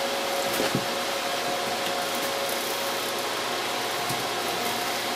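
Steady hiss of an unmodulated plasma-speaker arc, driven through a TV flyback transformer at about 130 kHz, with a few faint steady tones under it.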